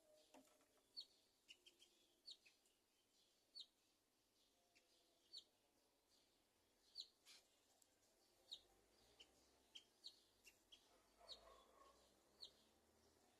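Small bird giving faint, short, high chirps, single or in quick pairs, about once a second.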